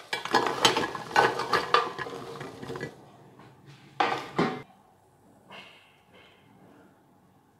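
Dry, stale bread cubes tipped from a metal pan clatter and rattle into a glass baking dish for about three seconds, followed by two sharp knocks about four seconds in.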